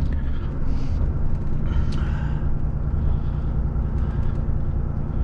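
Volvo FH16 timber truck on the road, heard from the cab: a steady low engine drone with road noise.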